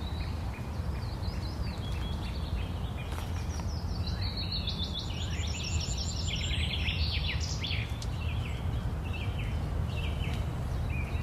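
Several songbirds singing and chirping, with a fast, even trill of high notes about halfway through, over a steady low rumble.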